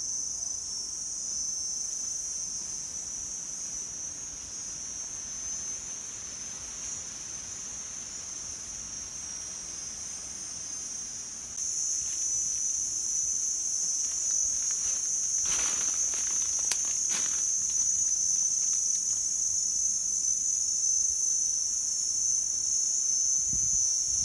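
Steady, high-pitched chorus of insects droning in the orchard trees; it becomes louder a little before halfway through. A few brief clicks and rustles come about two-thirds of the way through.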